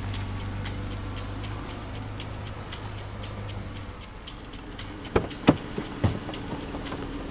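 Car engine idling with a steady light ticking about three times a second; about five seconds in, a few sharp clunks as a car door is unlatched and swung open.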